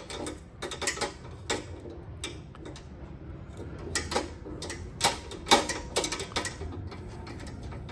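Irregular metal clicks and knocks of a flush bolt's rod and guide being handled and fitted into a storefront door rail, a cluster of them about five to six and a half seconds in.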